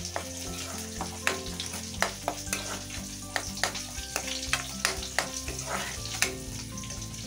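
Metal ladle stirring and scraping a thick onion-and-spice masala as it fries in a metal kadai: a steady sizzle with frequent sharp clicks of the ladle against the pan.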